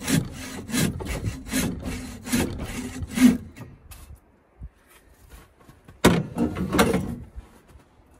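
Bow saw cutting through a log with regular rasping push-pull strokes, about two or three a second. The sawing stops after about three and a half seconds, and a short second burst of strokes comes about six seconds in.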